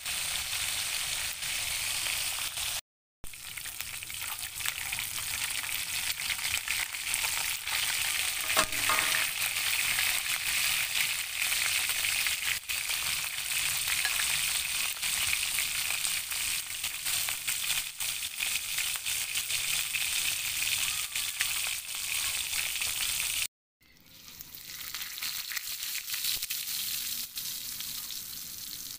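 Food sizzling in hot oil in a pan: a steady hiss with scattered crackles and pops, broken twice by short silences.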